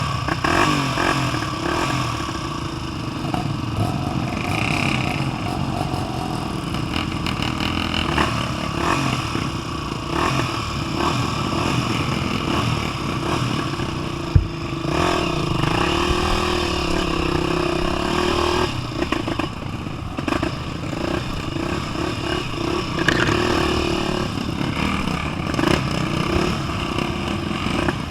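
Dirt bike's single-cylinder engine running on a trail, its revs rising and falling as it is ridden over rough ground, with rattling throughout. A single sharp knock comes about halfway through.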